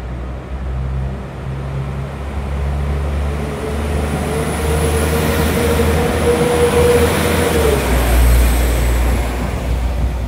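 A train running through a railway station, a steady low rumble that grows louder to a peak about eight seconds in. A steady whine sounds from about four to eight seconds in.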